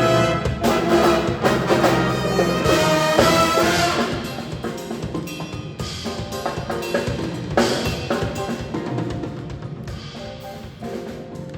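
Jazz ensemble music with trumpets and other brass over a drum kit, growing softer after about four seconds.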